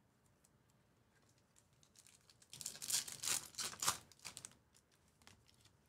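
A foil trading-card pack torn open by hand, the wrapper crinkling and tearing for about two seconds starting halfway in, then dying away to a few small clicks.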